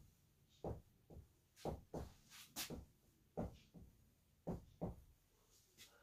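Dry-erase marker writing on a whiteboard, faint: a quick series of short separate strokes and taps as letters are written.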